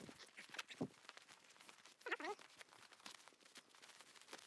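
Faint rustling of a nylon stuff sack as a rolled blanket is pushed into it, with one short wavering voice sound about two seconds in.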